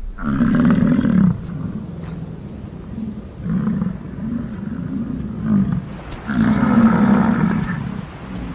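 American bison bulls bellowing in the rut: three long, low roaring calls, the middle one broken into a run of pulses.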